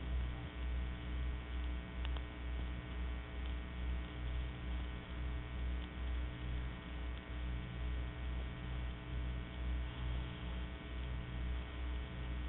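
Steady electrical mains hum with faint hiss on an old recording, with a low throb underneath that pulses a few times a second. The sound is dull, with nothing above about 4 kHz.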